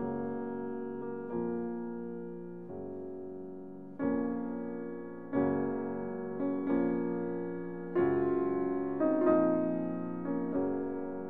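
Slow background piano music: chords struck every second or so, each note fading away before the next.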